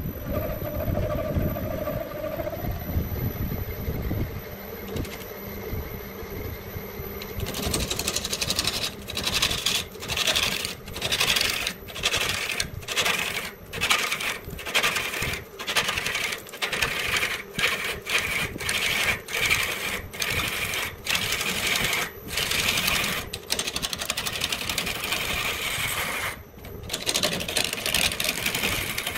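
A tool working wood in quick, repeated rasping strokes, about two a second, which begin several seconds in after a low rumble.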